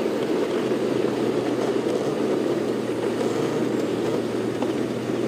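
Safari game-drive vehicle's engine idling, a steady low hum under an even rumble.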